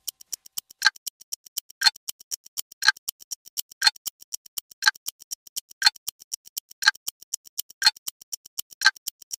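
Ticking clock sound effect: a sharp, louder tick about once a second with several quieter ticks between.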